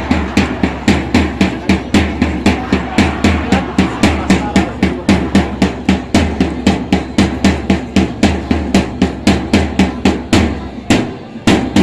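Dance accompaniment music driven by a fast, even drum beat of about four strikes a second over a steady low bass line. The beat breaks briefly near the end.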